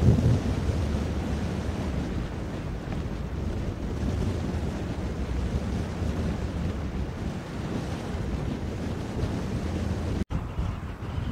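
Steady wind noise buffeting the microphone, heaviest in the low end, with no distinct machine or splash sounds standing out. There is a brief sharp dropout about ten seconds in.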